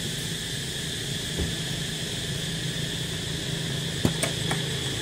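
Steady outdoor background: a constant high insect drone with a low engine-like hum beneath it, and a few faint clicks about four seconds in.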